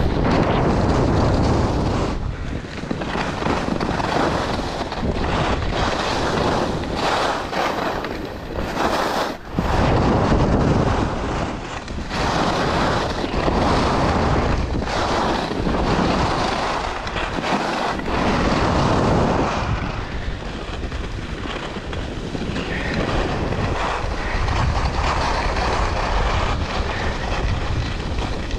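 Wind buffeting the microphone during a ski descent, mixed with the hiss and scrape of skis on packed snow. It swells and fades irregularly with the turns.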